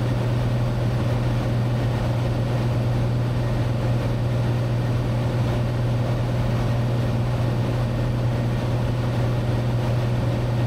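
Cessna 182T's Lycoming IO-540 six-cylinder engine and propeller droning steadily in cruise flight, heard inside the cabin, with a strong low hum.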